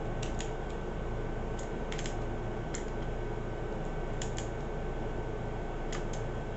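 Faint light clicks, several in quick pairs, from a screwdriver bit working small screws into a plastic RC gearbox casing, over a steady hiss and hum.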